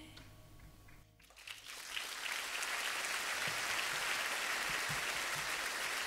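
The last note of the song dies away, then audience applause starts about a second in and swells to a steady level.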